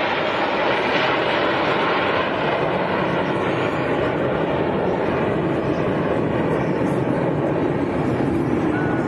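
Steady jet engine noise from Blue Angels F/A-18 Hornets flying in formation and then breaking apart, heard from the ground.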